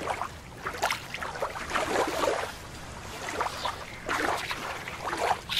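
A small plastic hand net swishing and splashing through shallow water in several sweeps.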